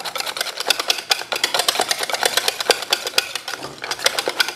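A whisk whipping mashed potatoes in a stainless steel saucepan: rapid, continuous clicking and rattling as the whisk strikes the pot.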